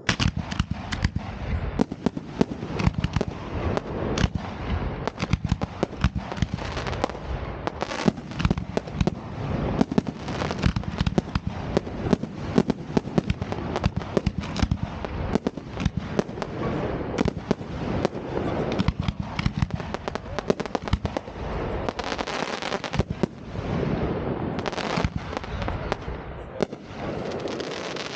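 Fireworks going off in a dense, unbroken string of rapid bangs that starts suddenly.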